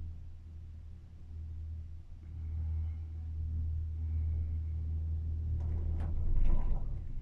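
Gondola cable car cabin travelling along its cable, heard from inside as a steady low hum. A few knocks and rattles come near the end.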